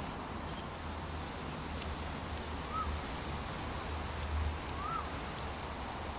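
Two short, arched bird calls about two seconds apart, over a steady outdoor background with a low rumble.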